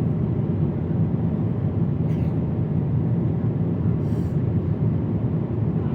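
Steady cabin noise of a Boeing 777-300ER in flight: an even low rumble of engines and airflow.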